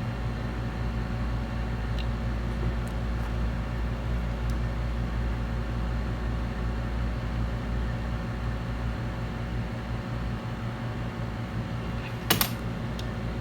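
Steady electric machine hum, like a running fan or motor, unchanged throughout. A single sharp click comes about twelve seconds in.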